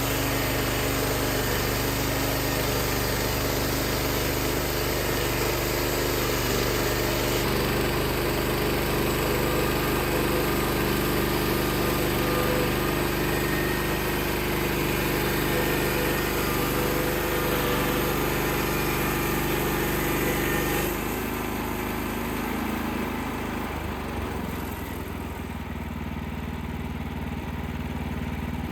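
The Wood-Mizer LX55 portable band sawmill's 14 HP engine runs steadily under a hiss. About three-quarters of the way through, the engine drops to a lower, quieter speed and the hiss fades.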